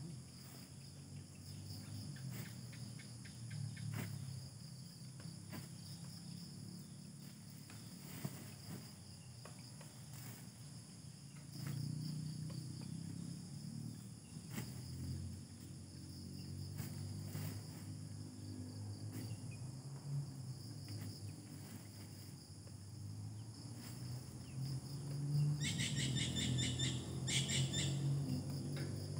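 Insects chirping steadily in the undergrowth, with faint scattered rustles and clicks as a plastic sack is handled. Near the end, a bird gives a quick series of repeated chirps.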